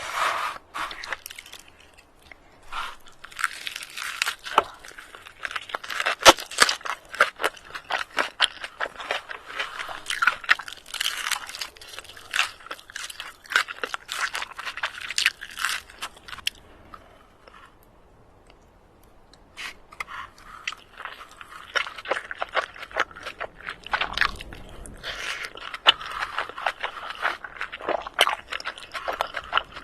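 A person eating crunchy food close to the microphone, with dense crackly bites and chewing. There is a pause of a few seconds just past the middle, then the chewing resumes.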